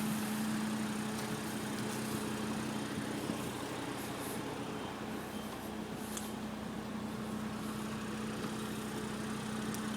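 A vehicle engine idling steadily, a constant low hum with one held tone.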